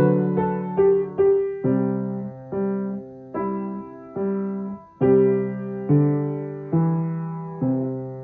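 Piano playing a slow run of chords, each one struck and left to ring and fade before the next, a little under one a second.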